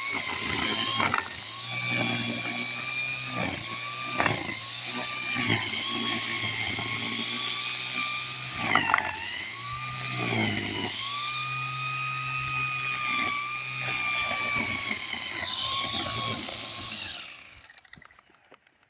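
Makita MUR1601N 100-volt electric grass trimmer running with a steady motor whine, its pitch dipping briefly several times under load. About seventeen seconds in, it is switched off and winds down.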